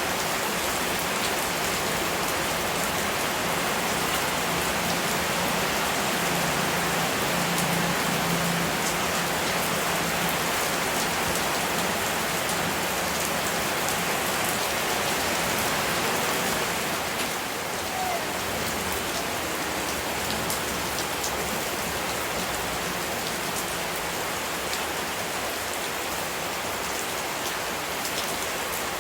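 Steady rain falling on a surface: a constant hiss with scattered drop ticks, easing slightly a little past halfway.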